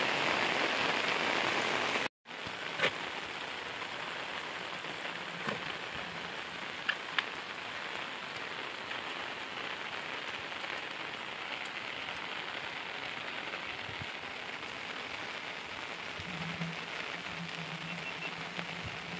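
Steady rain falling, an even hiss with a few sharp ticks of single drops. It cuts out for a moment about two seconds in and then carries on a little quieter.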